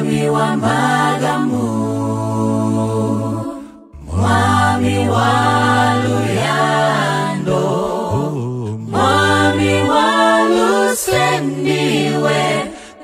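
A cappella vocal group singing in harmony, with a low bass voice holding long notes under the higher voices. The phrases break off briefly about four seconds in and again near nine seconds.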